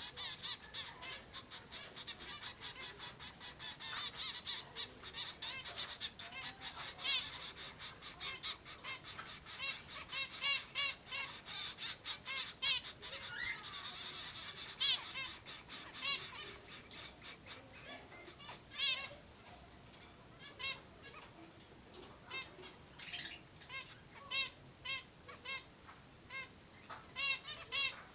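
Zebra finches calling: a dense, rapid run of short nasal calls through the first half, then single calls spaced about a second apart.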